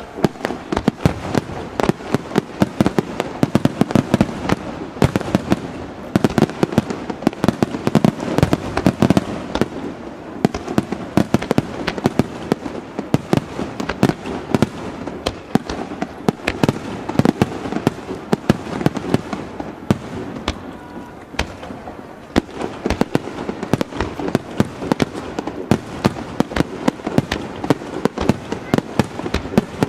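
Aerial fireworks bursting in a rapid, continuous barrage of sharp bangs and crackles, several reports a second, over a steady rumbling haze.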